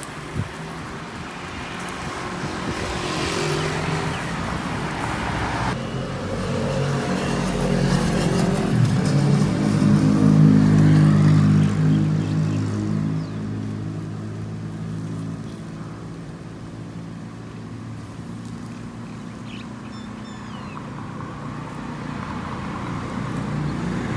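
A motor vehicle's engine running close by, growing louder to a peak about halfway through and then fading away, over steady street noise.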